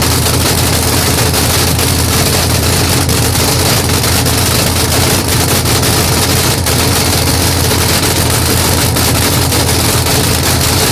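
Chevy Vega funny car's race engine running steadily and loud at a fast idle.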